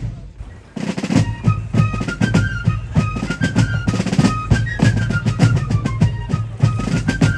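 Fife and drum corps playing a march: a high fife melody over regular snare and bass drum beats, starting up about a second in.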